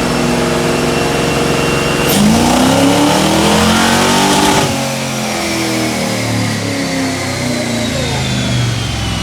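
Fox Body Mustang 5.0 V8 on a chassis dyno running steadily, then about two seconds in going to full throttle in a pull that climbs in pitch for about two and a half seconds before the throttle closes. The engine note then falls back while a thin high whine slides down in pitch as the rollers wind down.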